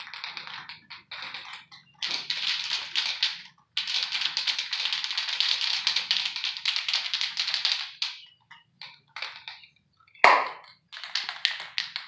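Aerosol spray paint can spraying in hissing bursts, the longest lasting about four seconds, with shorter choppy bursts and the rattle of the can's mixing ball as it is shaken near the end.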